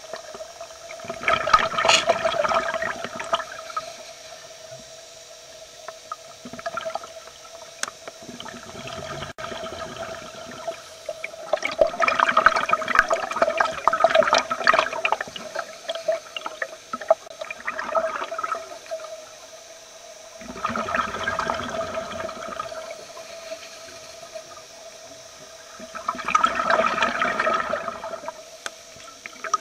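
Scuba regulator exhaust bubbles heard underwater: five bursts of rushing, gurgling bubbles, each lasting a couple of seconds, with quieter gaps between them as the diver breathes in. A steady faint hum runs underneath.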